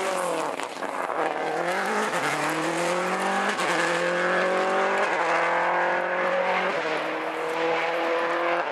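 Rally car engine running hard at high revs, its pitch climbing and then dropping in steps several times.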